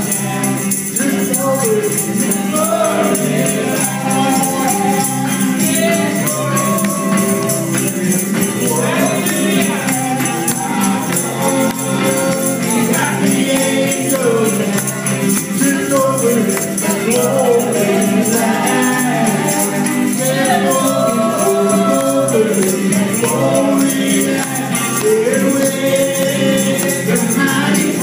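A gospel song: singing voices over an amplified electric guitar, live and amplified through the church's sound system.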